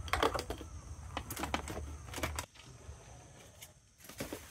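Light, irregular clattering and knocking of plastic baskets and fishing gear being handled and set into the back of a van. The knocks are busiest in the first couple of seconds, then thin out.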